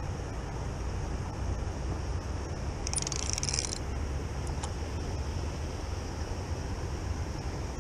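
Spinning reel being cranked while a hooked fish is brought in, over the steady rush of river water and a low rumble. About three seconds in, a short burst of rapid metallic clicking comes from the reel, with a single click a second later.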